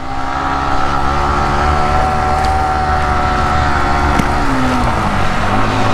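Yamaha R15 V3's 155 cc single-cylinder engine running at steady revs while riding, with rushing air. The revs dip slightly about four seconds in.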